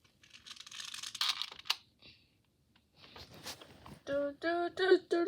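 Rubik's cube being turned quickly by hand: a rapid run of small plastic clicks and clatter as the layers rotate, with a short pause in the middle. Near the end a voice joins in with short pitched sounds.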